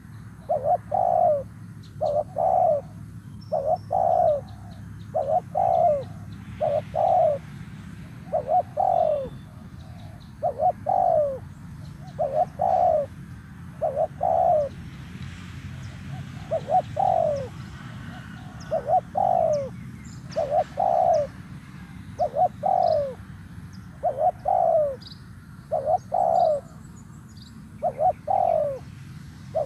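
Spotted dove cooing over and over: a steady string of short, falling coos, about one a second and often in close pairs. It is the call hunters use to provoke wild doves into answering.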